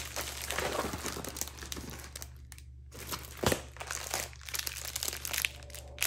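Clear plastic wrapping crinkling and rustling as a rolled bundle of diamond-painting drill bags is handled, with a light knock about halfway through.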